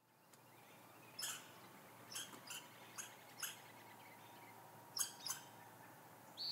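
About seven short, sharp, high-pitched bird calls at irregular intervals, over a faint steady hum.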